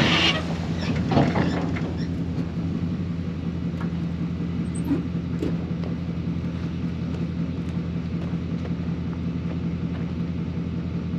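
Dump truck engine running steadily. A rush of clay slides out of the raised bed in the first couple of seconds.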